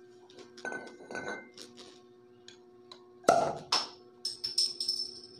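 Glass beer bottle knocking and clinking against a ceramic tile floor, a few separate knocks with the loudest about three seconds in, then lighter clinks with a high ring near the end.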